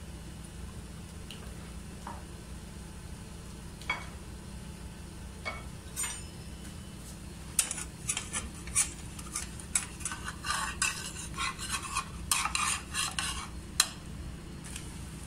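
Metal spatula scraping and tapping against a nonstick frying pan while it is worked under a pancake to loosen it: a few separate clicks at first, then a quick run of scrapes and taps in the second half. A steady low hum lies under it.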